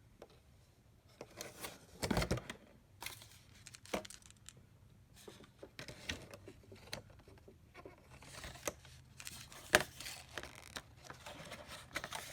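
Packaging and small parts being handled: intermittent rustling and crinkling with scattered light clicks and knocks. There is a louder rustle about two seconds in and a sharp click near the end.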